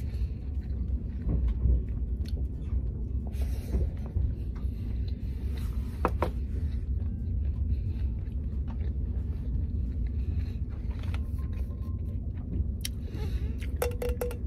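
Steady low rumble of a TGV Lyria high-speed train running, heard inside the passenger cabin, with scattered small clicks and taps that come more often near the end.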